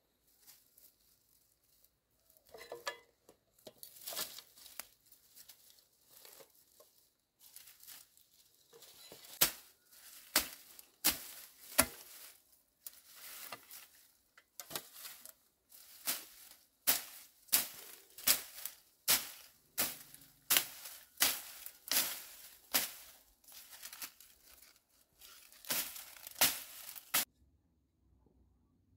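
Rustling and footsteps in dry grass, then a long-handled hoe chopping repeatedly into dry brush and soil to clear around a wild tuber: crisp strikes about one to two a second with dry stalks crackling. The chopping stops abruptly near the end.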